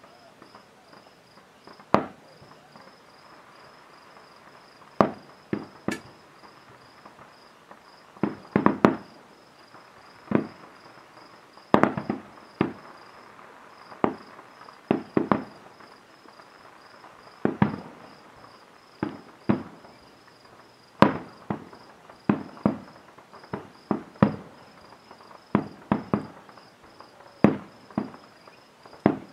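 Aerial firework shells bursting: around thirty sharp bangs at uneven intervals, some coming in quick pairs and clusters.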